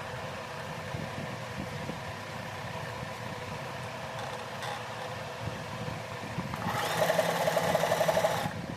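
Usha Janome Allure DLX electric sewing machine running with a steady hum, then about two seconds of faster, louder stitching with a rapid, even needle rattle near the end, which stops abruptly.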